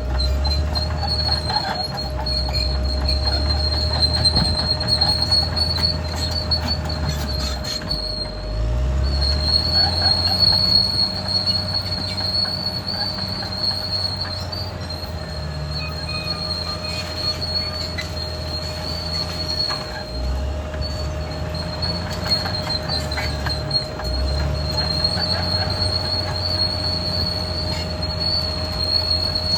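Caterpillar D6R XL crawler bulldozer working: its diesel engine runs with a deep rumble that dips and picks up again twice, over a steady high metal squeal from the steel tracks that breaks off briefly each time.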